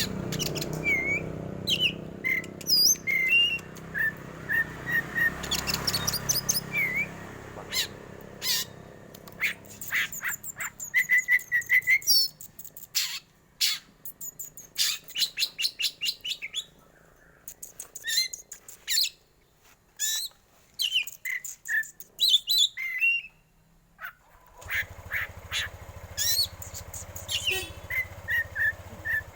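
Black magpie-robin (kacer hitam) singing a varied song of sharp whistles, harsh chattering trills and fast clicking runs, breaking off briefly a few seconds before the end.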